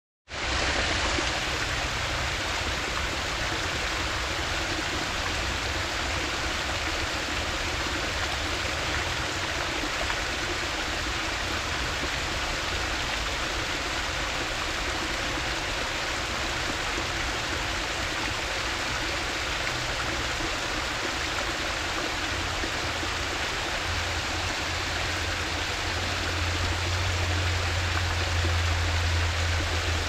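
Small waterfall spilling over layered rock into a shallow creek pool, with water rippling over a lip right beside the microphone: a steady splashing rush. A low rumble grows louder in the last few seconds.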